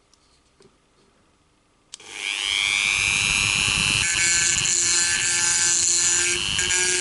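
A Dremel rotary tool is switched on about two seconds in, its motor whine rising as it spins up to a steady high pitch. From about four seconds its pink grinding stone grinds the steel feed ramp and throat of a .45 1911 barrel, adding a harsh scraping note over the whine.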